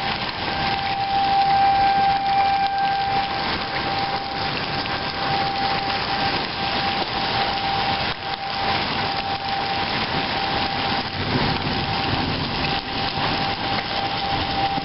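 Hail and heavy rain pelting down, a dense, continuous clatter of hailstones striking. An outdoor tornado warning siren holds a steady tone behind it, loudest in the first few seconds.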